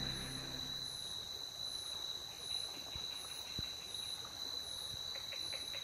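Night insect chorus in tropical forest: a steady high buzz with a fainter, higher chirp repeating about every three quarters of a second. A couple of faint clicks come near the middle.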